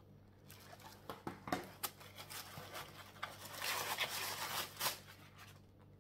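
Hands rummaging through a box packed with dissolvable packing peanuts: irregular rustling and light crunching with scattered clicks, busiest a little past the middle.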